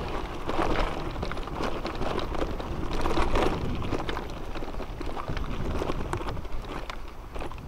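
Mountain bike rolling downhill over loose stony dirt and grass: tyres crunching on gravel, with the bike rattling in many quick sharp clicks over the bumps and a steady low rumble.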